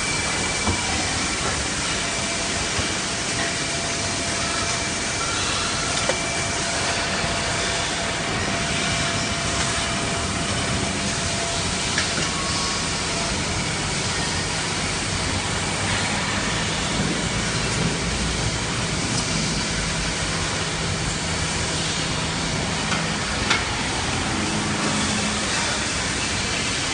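Steady machine-shop noise from CNC lathes and a loading robot running: a constant hiss with faint steady whines and hums, and a few sharp clicks scattered through.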